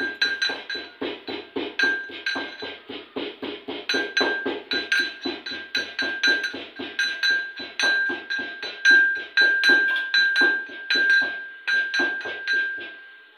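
Small metal mortar and pestle pounding whole spices for garam masala, a steady run of strikes at about four a second. Each strike rings with a bright metallic tone.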